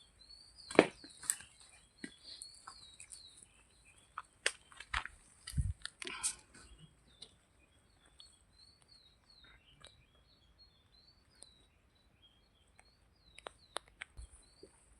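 Small birds chirping repeatedly over a steady high-pitched hiss, with scattered sharp clicks and knocks, most of them in the first half and again near the end.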